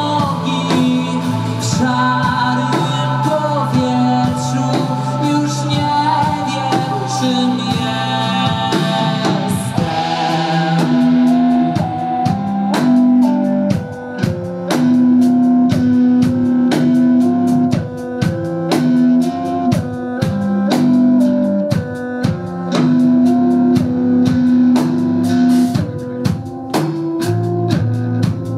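A live band playing with keyboards, bass guitar and a drum kit keeping a steady beat; from about ten seconds in the drum hits stand out more clearly against the keyboards and bass.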